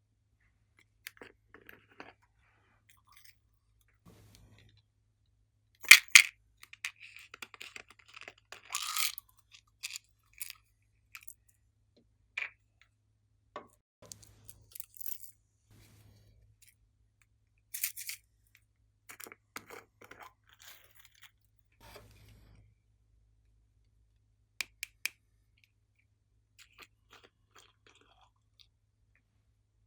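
Glossy slime being squished and worked by hand, giving irregular sticky clicks and crackles with quiet gaps; the loudest pair of pops comes about six seconds in.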